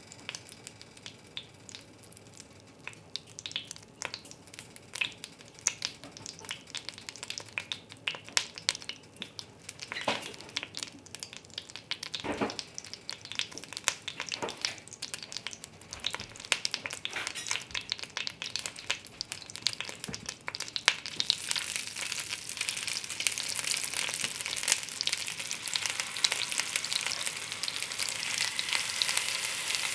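Hot oil crackling and popping in a cast-iron Dutch oven. About two-thirds of the way through, beef short ribs go into the pan and a loud, steady sizzle of searing meat takes over.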